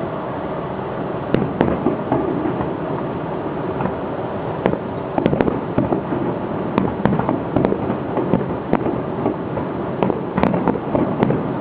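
Aerial fireworks going off: a dense run of sharp cracks and bangs over a steady rumble. The crackling grows thicker and louder about halfway through.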